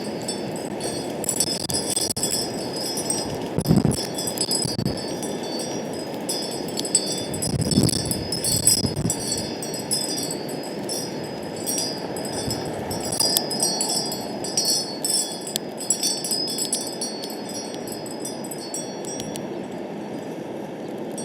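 Wind chimes tinkling on and off in gusty wind, over wind rumbling on the microphone; the strongest gusts come about four and eight seconds in.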